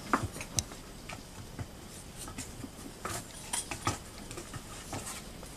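Puppies' paws and claws tapping and scuffling on wooden decking: irregular light taps and knocks, with a few sharper ones near the start and again about three to four seconds in.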